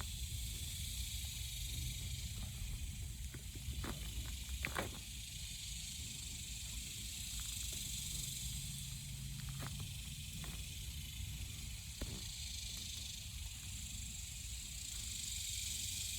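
A steady high hiss with a low rumble beneath, broken by a few faint sharp clicks and tearing sounds as the skin of a freshly killed rooster is pulled off by hand.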